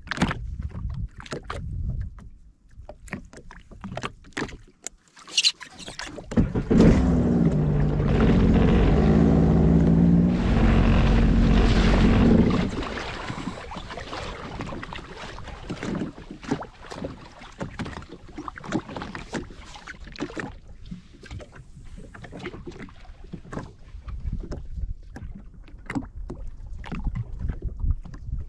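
Sea-Doo FishPro Trophy jet ski engine running steadily for about six seconds near the middle. Before and after it come many small irregular knocks and clicks.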